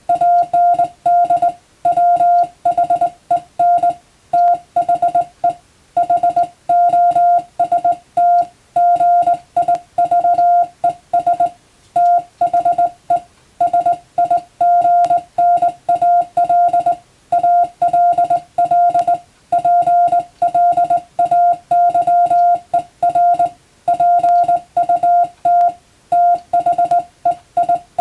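Morse code (CW) sent as a single steady tone of about 700 Hz, keyed on and off in dots and dashes with short gaps between characters.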